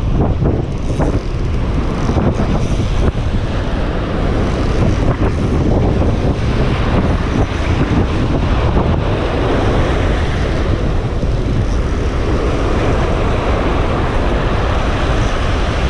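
Strong wind buffeting the microphone, a loud steady rush heaviest in the lows, over waves breaking on the shore.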